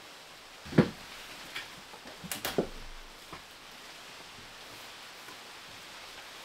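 Split firewood knocking against the inside of a steel woodstove firebox as it is loaded in: a sharp knock about a second in, then a few smaller clunks over the next two seconds, over a faint steady hiss.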